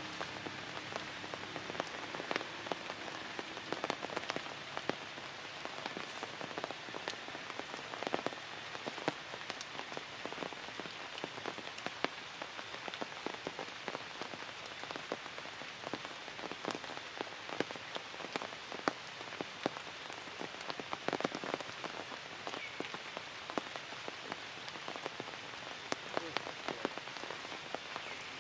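Steady rain falling through tree foliage, a constant hiss with many sharp taps of single drops landing close by.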